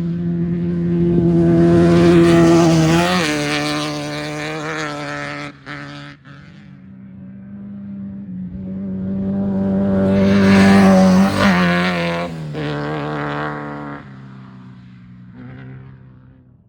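Two off-road race vehicles passing one after the other at speed, each engine note rising in loudness and dropping in pitch as it goes by, about 2 and 11 seconds in, then fading away.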